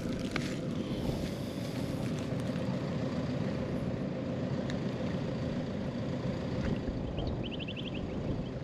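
Steady low rumble of a vehicle driving, heard with a faint constant hum. Near the end comes a short, quick trill of about eight rapid chirps.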